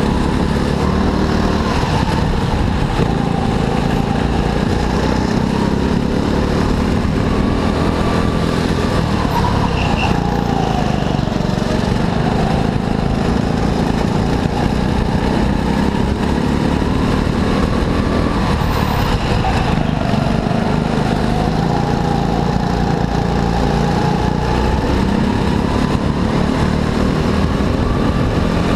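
Kart engine running hard, its pitch climbing and dropping back every several seconds as the kart accelerates along the straights and slows for the corners, over a constant heavy low rumble.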